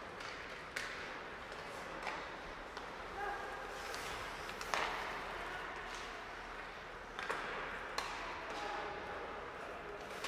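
Ice hockey play in a rink: irregular sharp clacks and knocks of sticks, puck and boards, the loudest a little before the middle and near eight seconds in, over steady arena background noise.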